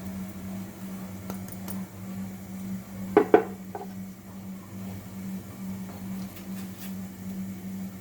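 Two sharp clinks in quick succession about three seconds in, and a fainter one just after, as a utensil knocks against the cooking pot while ground spices and grated ginger are tipped into the water. A steady low hum runs underneath.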